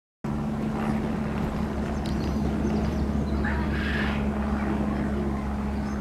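A steady low mechanical hum with a held tone, and faint bird calls about three and a half seconds in.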